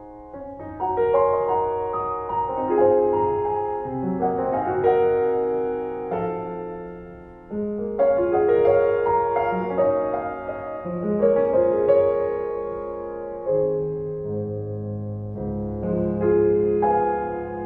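Slow, gentle piano music, with sustained notes in phrases that swell and fade, a new phrase starting about a second in and another about halfway through.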